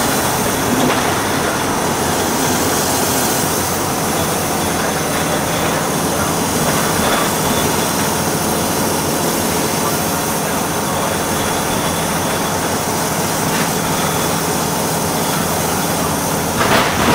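Volvo B6BLE single-deck bus heard from inside the saloon while under way: steady engine hum and road noise throughout, with a brief louder noise near the end.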